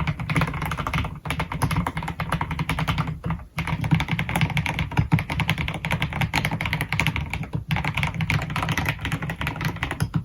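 Fast typing on an AKKO x MonsGeek MG108B full-size mechanical keyboard fitted with piano switches: a dense stream of keystrokes with short breaks about a second in, about three seconds in and near eight seconds.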